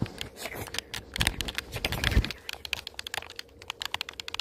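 Rapid keyboard typing: a quick, irregular run of sharp key clicks, with a few heavier taps in the first half.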